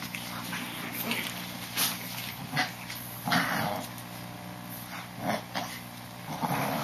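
Young Boston terrier puppies playing and tussling, with about five short puppy vocal sounds; the loudest comes about halfway through.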